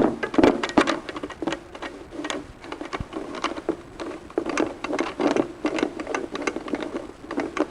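Bolts being hand-threaded into a chair's leg and bracket: irregular small clicks and rattles, a few a second.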